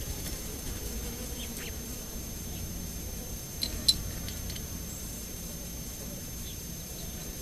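Desert outdoor ambience: a few brief, high bird chirps, the sharpest and loudest just past the middle, over a steady low background noise and a faint, constant high thin tone.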